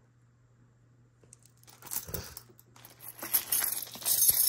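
Plastic zip-top bags crinkling and costume jewelry (metal bangles and beaded necklaces) clinking as hands rummage through a pile and lift pieces out. It starts a little under two seconds in and grows busier and louder near the end.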